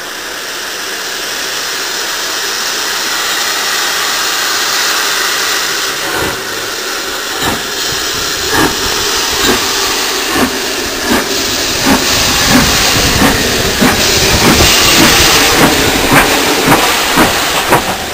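GNR N2 0-6-2T tank locomotive No. 1744 hissing steam, then getting under way. Its exhaust beats come in about six seconds in and quicken steadily.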